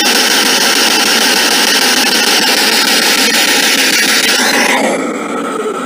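Spirit box (ITC Research Device) sweeping radio stations, its loud rushing static and noise played through a small external speaker. About five seconds in it drops in level and turns duller.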